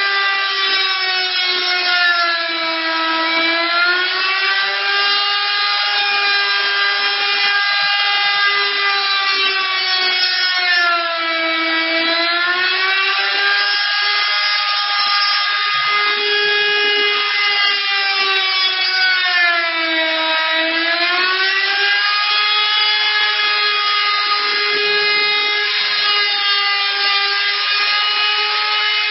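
The high-pitched electric motor of an automatic dovetail-cutting machine running steadily, its pitch dipping briefly and recovering three times, roughly every eight or nine seconds.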